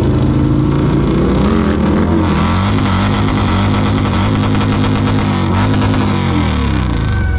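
Touring bagger motorcycle's engine revved up and held at high revs for a burnout, the pitch wavering a little before the revs drop away near the end.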